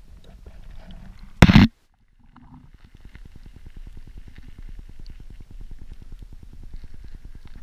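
Wind rumbling on the camera microphone, broken by one loud knock about a second and a half in. After a short drop-out the rumble returns with a fast, even flutter.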